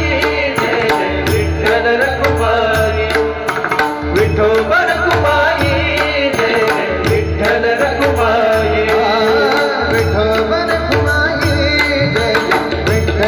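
Marathi varkari bhajan music: a hand drum plays a steady repeating rhythm under a wavering melody, with sharp bright clicks on the beats.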